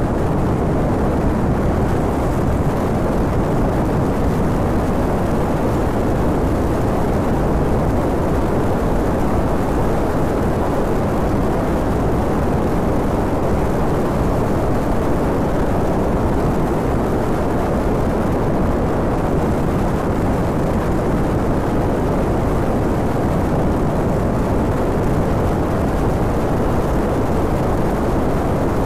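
Steady rush of wind over a handlebar-mounted phone's microphone as a 2011 Honda VTR250 V-twin motorcycle cruises at about 85 km/h. The engine and tyre noise are blended into the rush.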